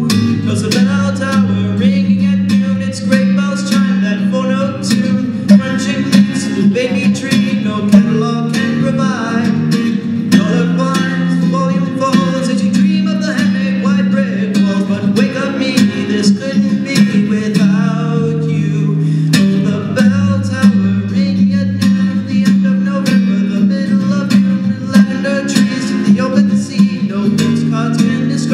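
Live song music led by guitar: plucked notes ring over a steady low line in a passage with no sung words.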